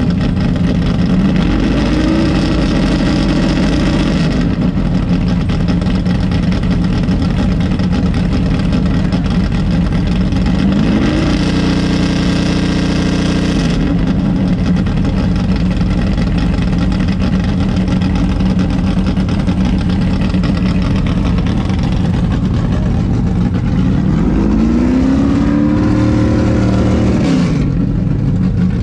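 406 small-block Chevy V8 in a 1974 Pontiac GTO idling, revved up and held briefly three times: near the start, about eleven seconds in, and about twenty-four seconds in. The revs come while the carburetor is being tuned.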